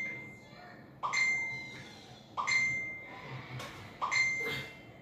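Smartphone message-notification chime sounding over and over, a new chime about every second and a half, each ringing briefly and fading: a stream of incoming chat messages.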